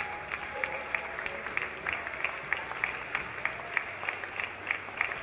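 A crowd applauding, with sharp single claps standing out several times a second over the steady patter of many hands.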